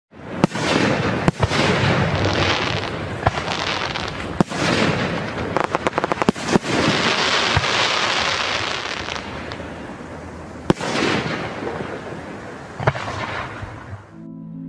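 Aerial fireworks going off: separate sharp bangs with a rushing noise between them, and a quick run of crackles about six seconds in. It fades away near the end.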